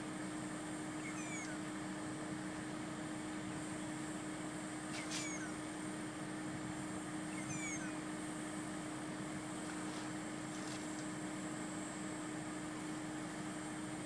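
Steady low hum of an idling vehicle engine, with three short, high falling chirps about a second in, near five seconds and near eight seconds.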